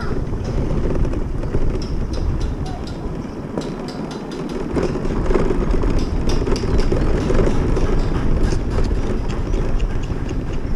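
Motor scooter on the move over a rough gravel street: a steady low rumble of engine, tyres and wind on the microphone, with frequent small clatters and knocks from the bumps.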